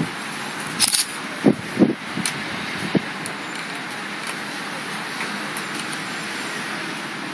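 Steady city traffic noise, tyres on a wet road below. A handful of short knocks and clicks come between about one and three seconds in.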